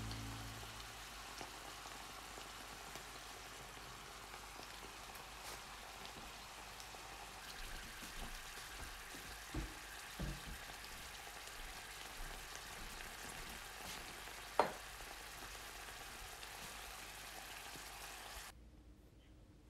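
A pan of soybeans, carrot and hijiki seaweed simmering in its cooking liquid: a soft, steady sizzle with small pops, a few light knocks, and one sharper click about fifteen seconds in.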